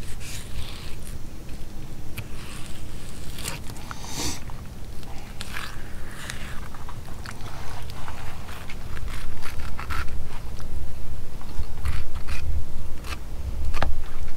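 A knife scraping and crunching along a flounder's backbone and rib bones as the fillet is cut free, in many short, irregular strokes, over a low rumble that grows louder about halfway through.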